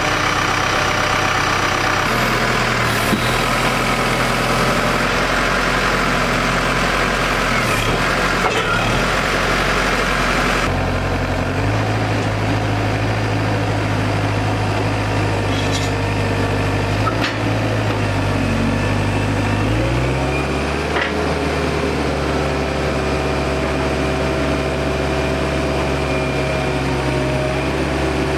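Telehandler engine running steadily while the boom and pallet forks are worked. Its pitch steps up about two seconds in and again about twelve seconds in, then rises smoothly a little after twenty seconds.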